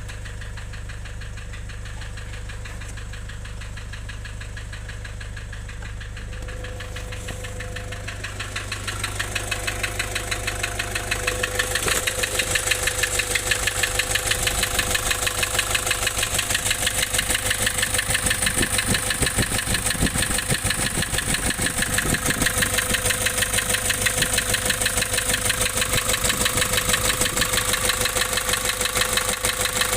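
Nissan Urvan's ZD30 four-cylinder diesel engine running with a rapid, even knocking. It starts as a steady low hum and grows louder over the first ten seconds or so, then knocks loud and steady; the title names engine knocking as this engine's fault.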